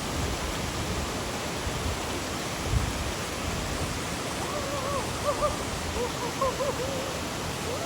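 Waterfall rushing steadily into a pool. Over the second half, a faint run of short pitched notes that rise and fall sits on top of the rush.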